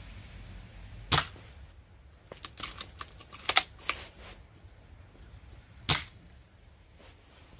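ARES MSR 008 airsoft bolt-action sniper rifle, a replica of the Accuracy International Arctic Warfare Super Magnum, firing two sharp shots about five seconds apart. Between them comes a quick run of clicks as the bolt is worked.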